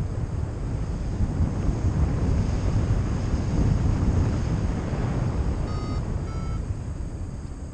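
Airflow buffeting the microphone of a paraglider pilot in flight, a steady gusty rush. About six seconds in come two short beeps from a variometer, the second slightly higher in pitch: the vario's tone for rising air.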